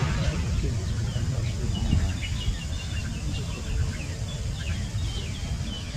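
Small birds chirping in quick repeated short notes, starting about two seconds in, over a steady low rumble.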